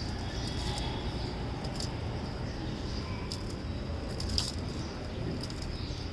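Small pet parrots chirping: short, scattered high chirps, with one sharper chirp about four seconds in, over a steady low rumble.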